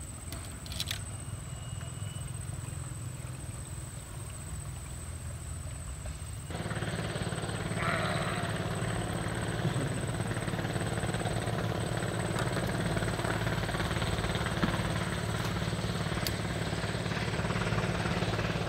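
An engine running steadily with a low hum. It gets louder and rougher about six seconds in and cuts off abruptly at the end.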